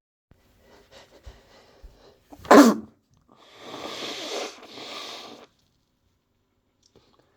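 A person sneezing once with a cold: faint breaths build up, then one sharp, loud sneeze about two and a half seconds in, followed by a couple of seconds of breathy noise.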